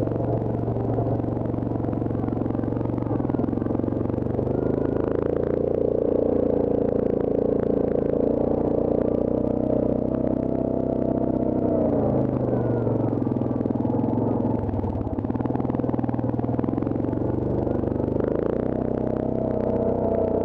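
Yamaha Grizzly ATV engine running on a rough dirt trail, the revs climbing about four seconds in, dropping around twelve seconds and climbing again near the end, with rattles and knocks from the bumpy ground.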